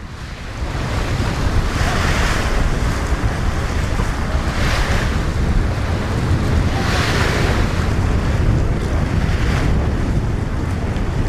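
Strong wind buffeting the microphone in a steady low rumble, over waves washing in about every two and a half seconds.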